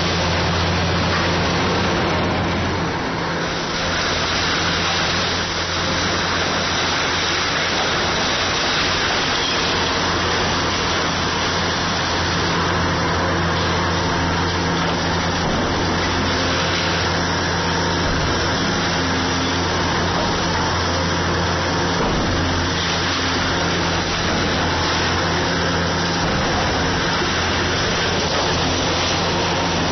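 Kobelco SK500 hydraulic excavator's diesel engine running steadily under a dense, continuous noise of machine work.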